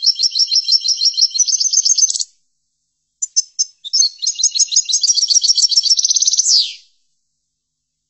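European goldfinch singing two loud twittering phrases of fast repeated high notes, the second ending in a quick downward sweep.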